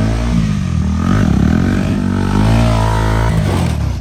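Motorcycle engine revving, its pitch rising and falling several times, then easing off near the end.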